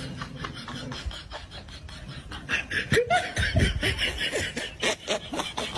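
A person laughing in short, choppy bursts that grow louder about halfway through.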